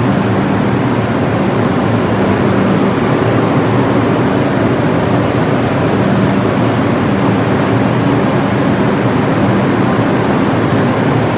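Subway train standing at the platform with its doors open, giving a loud, steady rumble and hum with no speech and no change.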